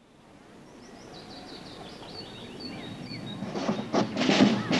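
Birds chirping over faint outdoor background as the sound fades in. About three and a half seconds in, a marching drum corps's snare drums start beating, getting louder toward the end.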